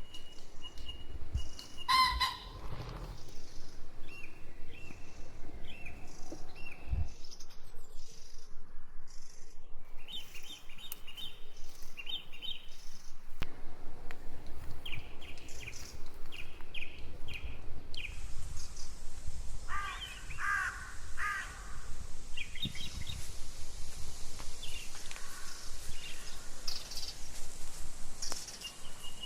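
Small birds chirping throughout, with chickens calling: a loud call about two seconds in and longer calls around twenty seconds in. A low thump about seven seconds in.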